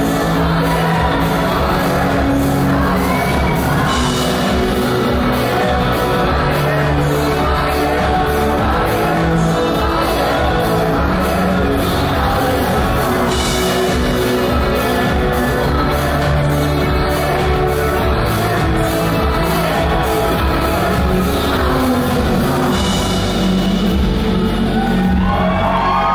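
Live band recorded from the audience in a large hall: a woman singing lead over a steady drum beat, bass, keyboards and guitar.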